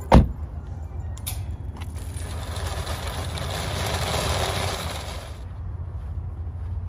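A car door shuts with a single loud thump, then a wire shopping cart rattles as it is pushed over asphalt for about four seconds before stopping suddenly.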